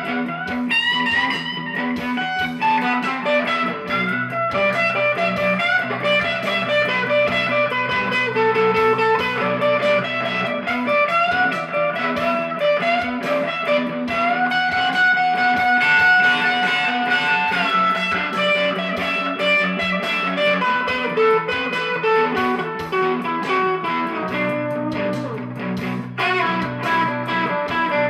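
Background music led by electric guitar, playing a melody over a steady bass line.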